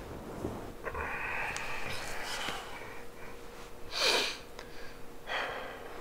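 Someone crying quietly: a long shaky breath, then a loud sniff about four seconds in and another sniff near the end.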